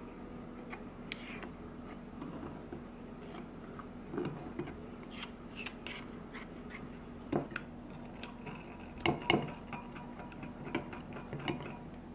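Two metal spoons stirring a soy-sauce seasoning in a small glass bowl, ticking and clinking irregularly against the glass, with a few louder clinks.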